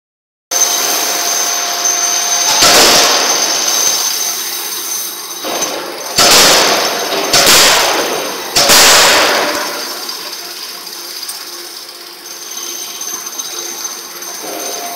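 Fully hydraulic forging hammer (converted from a steam hammer) striking a hot flange forging: four heavy blows, about 2.5, 6, 7.5 and 9 seconds in, each dying away briefly. Steady machine noise with a high whine runs underneath.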